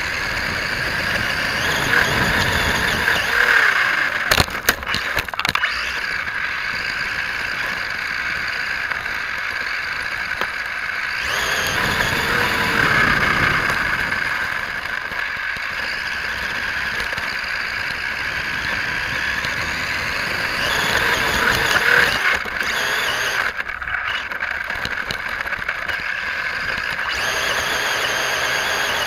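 Radio-controlled off-road truck driving over dirt and gravel, its motor running steadily and rising and falling in pitch as it speeds up and slows, three times. A few sharp clicks come about four to five seconds in.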